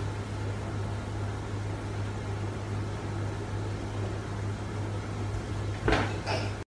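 Steady low electrical hum with hiss. A brief louder bump comes near the end as a cat in a snug anxiety vest topples over onto a wooden floor.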